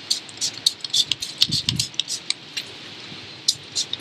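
Hand trigger spray bottle being squeezed over and over, giving short, quick hisses of fine mist at several a second, with a brief pause before the last few.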